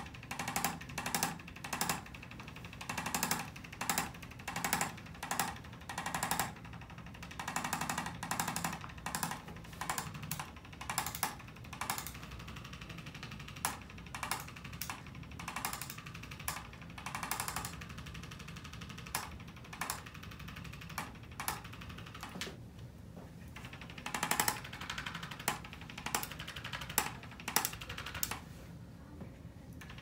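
Corded handheld chiropractic adjusting instrument rapidly tapping its stylus against a patient's lower back, in short bursts of quick clicks with brief pauses between them.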